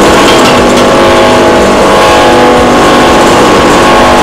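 Rotary dryer running: the steady, loud hum of its blower gas burner, a centrifugal electric fan forcing air into an LPG flame, with a held, even tone over a noisy base.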